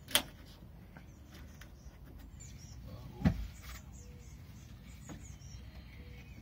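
A sharp click near the start and a heavier knock a little over three seconds in: a window pane being handled and pushed into the rubber seal of a van's rear door opening.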